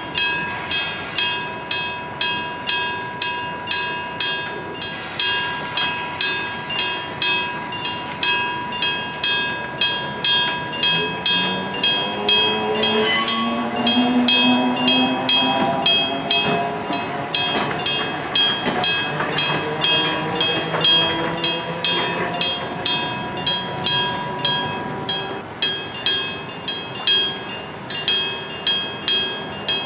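Electric-bell (dengshō-type) level crossing bell struck steadily, about twice a second, with a clear ringing tone. Midway a train passes the crossing: a short blast from the train about 13 seconds in, then a running sound that rises in pitch for several seconds.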